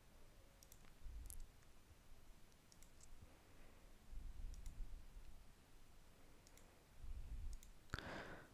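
Faint computer mouse clicks, several scattered single ticks, as faces and menu items are picked in CAD software. A short burst of noise near the end is the loudest thing.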